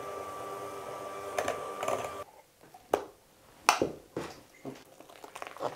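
Electric hand mixer running steadily, cutting off abruptly about two seconds in. Then a few sharp clicks and knocks of utensils against a bowl.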